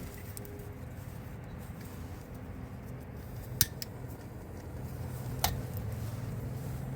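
Handheld gas torch flame burning steadily, heating a seized brake line fitting to loosen it, with two light metallic clicks partway through. The steady sound grows a little stronger about five seconds in.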